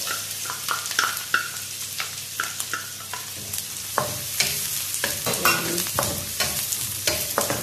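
Chopped onion and minced garlic sizzling as they sauté in a hot non-stick wok. A wooden spatula scrapes and taps against the pan as they are stirred, the strokes louder and more frequent in the second half.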